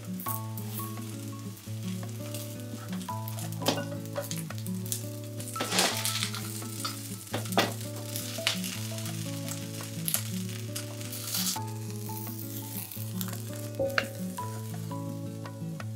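Corn chijimi batter sizzling in oil in a frying pan, with a wooden spatula scraping and pressing now and then. Soft background music with a stepping melody plays along.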